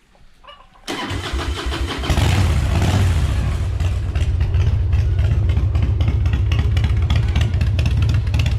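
Harley-Davidson Fatboy's 88 cubic inch Twin Cam V-twin being started: the electric starter cranks for about a second, then the engine catches and runs steadily and loudly with a rapid exhaust pulse.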